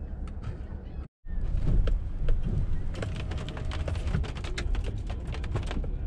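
Inside a car cabin: a steady low engine and road rumble, cut off by a brief dropout about a second in, then many quick, irregular light ticks over the rumble from about three seconds on.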